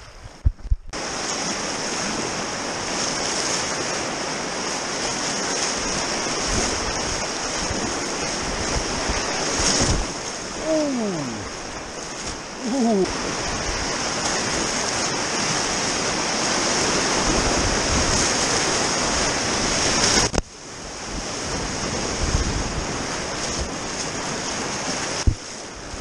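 River rapids rushing steadily, close up, as a whitewater kayak runs them. About halfway through come two short calls that fall in pitch.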